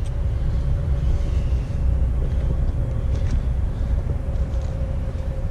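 An engine running steadily, a low rumble with a faint steady hum above it.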